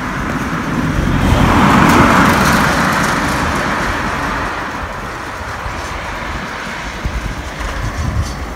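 Wind and road noise on a phone's microphone carried on a moving bicycle: a steady rush with a low rumble, swelling about one to three seconds in and then fading back.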